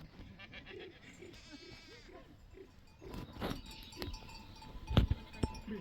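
Sheep and goats bleating, with a few sharp knocks, the loudest about five seconds in.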